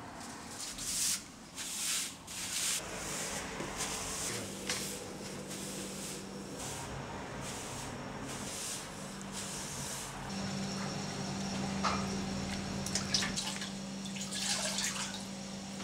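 Japanese straw broom (hoki) sweeping a wooden floor: a run of soft brushing swishes, about two a second, for the first ten seconds. After that a faint steady hum, with a few more soft rustles near the end.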